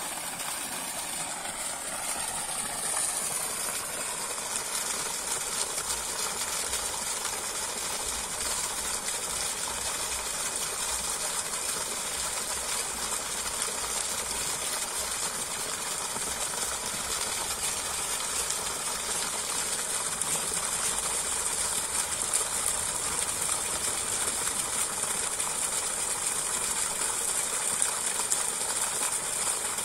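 Water gushing steadily from a pump's discharge hose into a shallow flooded rice paddy: a constant rushing hiss, with the pump's engine running under it.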